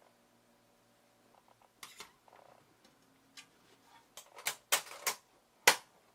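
Metal parts of a rib cartilage dicer clicking and clinking as they are handled: scattered single knocks that come closer together toward the end, the last one the loudest.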